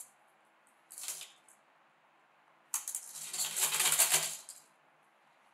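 Gloved hands wrapping and pressing an insulation strip around the joint between two double-wall stainless-steel chimney pipe sections, making a scratchy rustle. There is a brief one about a second in, then a longer one of about two seconds starting near the three-second mark.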